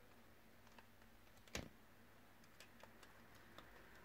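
Near silence with a few faint ticks and one sharper click about a second and a half in: small parts of the sat-nav's screen assembly being handled.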